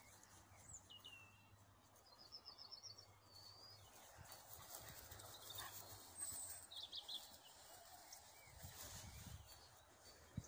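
Near silence with a few faint high bird chirps and one short trill, and soft footsteps near the end.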